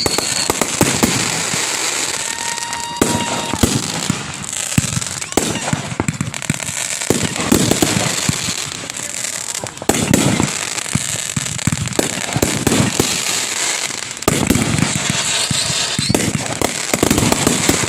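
Aerial fireworks exploding overhead at close range: a dense, continuous barrage of booms and crackling bursts with no pause.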